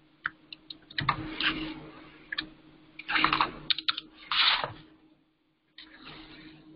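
Typing on a computer keyboard: scattered key clicks, with a few louder bursts of clattering noise about one, three and four and a half seconds in, over a faint steady low hum.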